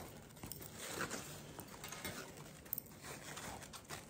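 Faint rustling and crinkling of thick wired fabric ribbon with foil checks being handled and shaped into bow loops, with a few light clicks.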